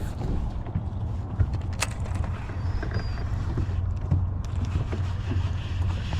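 Steady low rumble of a fishing boat on the water, with wind on the microphone; a single sharp click a little under two seconds in.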